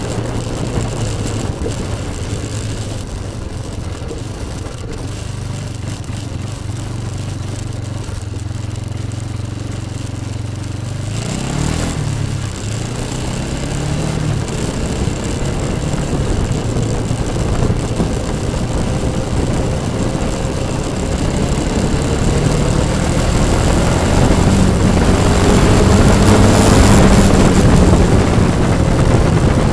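Yamaha Bruin ATV's single-cylinder four-stroke engine running under way: a steady drone at first, then about a third of the way in the revs rise and waver, and it grows louder toward the end.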